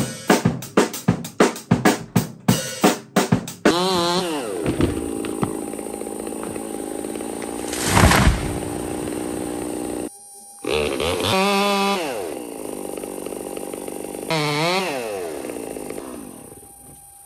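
A drum kit played in quick, steady hits for the first few seconds, then a chainsaw up in a tree takes over: it revs up, settles into steady running, surges loudly about eight seconds in, breaks off briefly near ten seconds, revs up twice more, and fades near the end.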